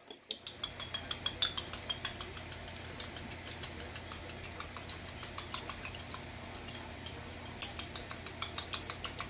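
A fork beating an egg in a small glass bowl: quick, even clicks of the tines against the glass, several a second, a little louder at first.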